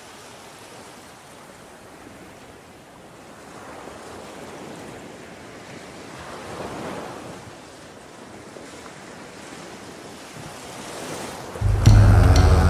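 Ocean surf washing onto a sandy beach, a steady rush that swells a couple of times in the middle. Music with a deep bass comes in suddenly near the end.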